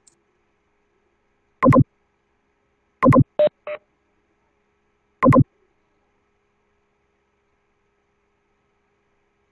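Short electronic beeps: a loud one nearly two seconds in, a cluster of three or four shorter tones around three and a half seconds in, and another loud beep past five seconds.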